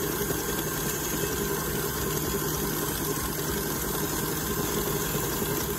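KitchenAid Artisan stand mixer motor running steadily with a constant hum, its wire whisk beating thick marshmallow mixture in a stainless steel bowl.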